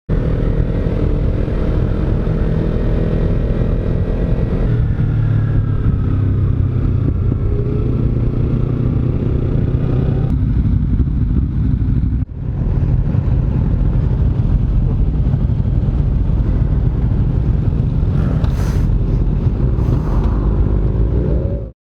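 Kawasaki Z300 motorcycle's parallel-twin engine running on the road, with rumble and wind noise. The engine note changes about five and ten seconds in and dips briefly about twelve seconds in.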